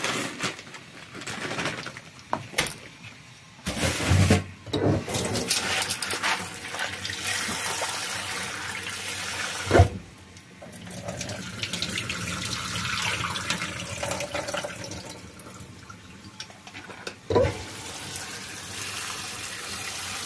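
Tap water running into a metal bowl in a stainless steel sink, with a sharp clunk of the bowl about halfway through and another near the end.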